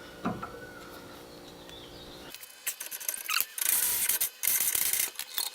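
Steel suspension bolt being worked loose with a breaker bar and 17 mm socket: a single click, then from about two seconds in a run of short, high-pitched squeaks and scrapes as the bolt turns in its threads.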